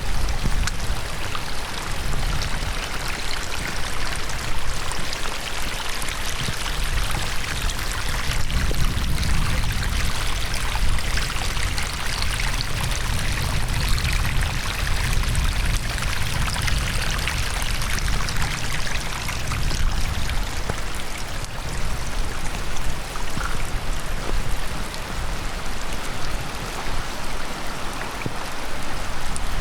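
Heavy rain and a stream swollen by the rain, running fast: a steady rushing hiss with a low, uneven rumble underneath.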